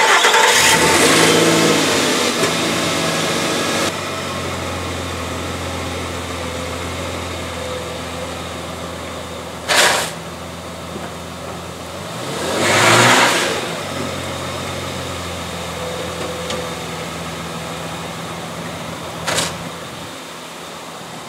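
A Nissan Frontier pickup's engine starts up and idles steadily. About halfway through, the engine speed rises and falls briefly. Two short sharp noises come about ten seconds in and near the end.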